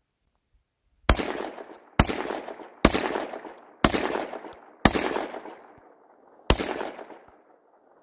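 Panzer EG200 semi-automatic shotgun firing six quick shots, about a second apart with a longer pause before the last, as the gun cycles each 1 1/4 oz, 1330 ft/s shell. Each report is followed by an echo that fades over about a second.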